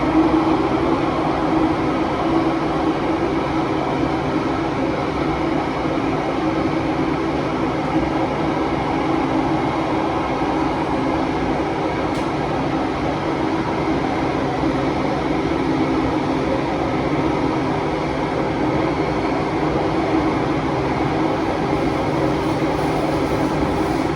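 Interior running noise of a Kawasaki–CRRC Qingdao Sifang T251 metro train in a tunnel: a steady, loud rush of wind noise with a constant low hum underneath.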